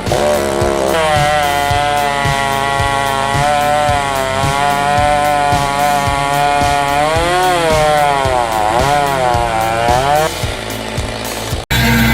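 Chainsaw running at high revs, its pitch dipping and recovering again and again as it loads in the cut, over a steady music beat. It cuts off suddenly just before the end.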